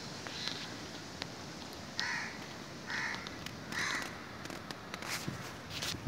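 A crow cawing three times, about a second apart.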